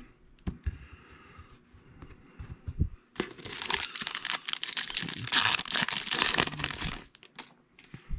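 Foil wrapper of a 2020 Topps Series 1 baseball card pack being torn open and crinkled, loud and continuous for about four seconds starting around three seconds in. Before that, a few faint clicks and taps of cards being handled.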